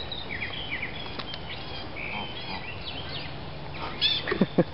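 Small songbirds chirping in the surrounding trees, many short high calls overlapping. A few louder short sounds come in quick succession near the end.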